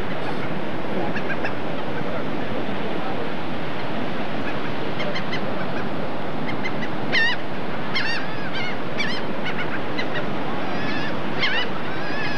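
A flock of seagulls calling, many short high cries that come thicker from about the middle on, over a steady rush of surf and wind.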